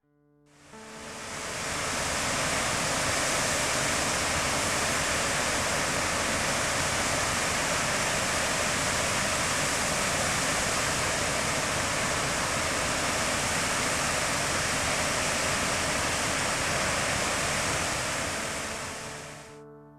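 Waterfall rushing steadily. It fades in over the first couple of seconds and fades out near the end.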